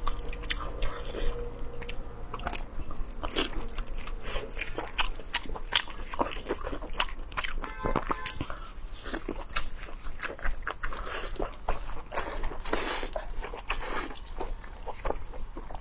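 A person biting and chewing crunchy food, with dense, irregular crunches and crackles.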